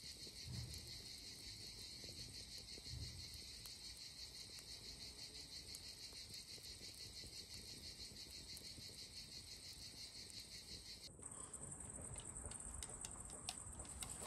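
Faint, steady chirring of insects, a dense high trill. About eleven seconds in it cuts off abruptly and gives way to a thinner, higher buzz with scattered light clicks.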